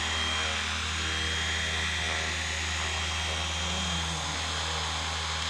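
Battery-electric FW 450 RC helicopter flying low, its rotor making a steady drone under a thin, high, constant whine.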